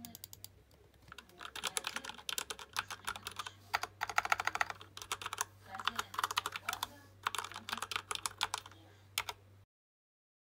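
Mechanical keyboard being typed on fast, in bursts of rapid key clicks with short pauses between them. The typing cuts off suddenly shortly before the end.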